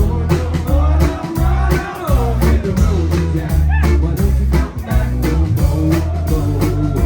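Live rock band playing: steady drum kit and bass underneath, with acoustic guitar and a lead line of bent, sliding notes over the top, in what sounds like an instrumental stretch.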